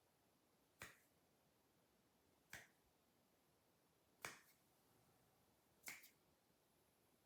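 Finger snaps, four of them in a slow, even rhythm about one every one and a half to two seconds, over a faint steady hiss.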